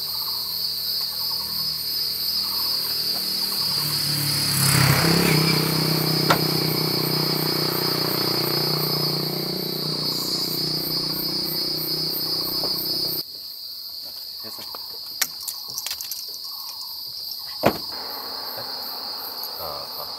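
Steady high-pitched buzz of an insect chorus in roadside trees. A low rumble underneath swells about five seconds in and cuts off abruptly about two-thirds of the way through, and a few sharp clicks follow near the end.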